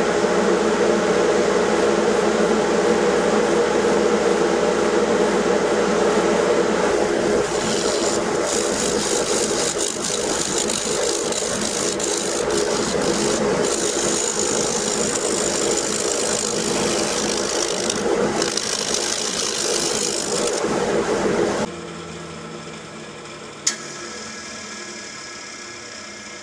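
Nova wood lathe running steadily while a scraper cuts the spinning spalted oak bowl, smoothing the hardened surface, with a rasping scrape coming and going over the motor hum. The lathe is switched off a little past 20 seconds in, leaving a fainter hum and one sharp click.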